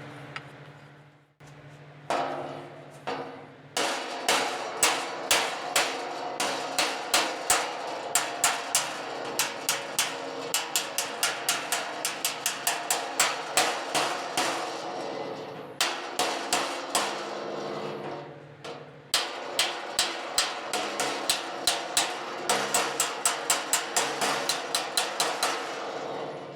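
Body hammer striking the sheet-metal fender of a 2023 Hyundai Palisade against a dolly: a steady run of sharp, ringing metallic blows, about three a second, with a couple of brief pauses. The hammer-and-dolly work is raising a flattened body-line ridge and dent, and it is very noisy.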